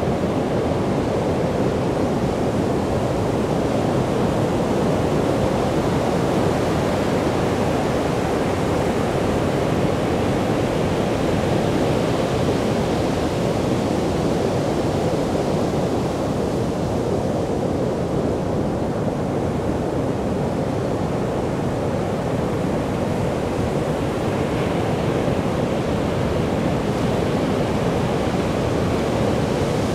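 Sea surf breaking on a beach: a steady rushing wash of waves that swells slightly now and then, with no single wave standing out.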